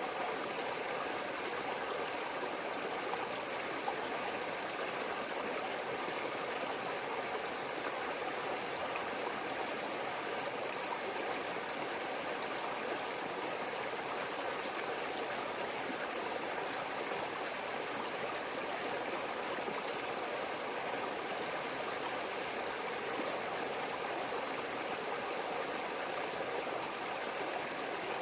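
Creek water flowing steadily over rocks: a continuous even rush and babble with no breaks.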